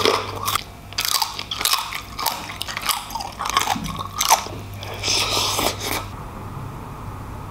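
A person biting into and chewing crispy food close to the microphone: loud, irregular crunches for about six seconds, then quieter.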